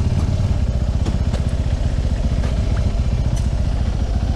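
Motorcycle engine running steadily with an even low throb and no revving, with a few light clicks.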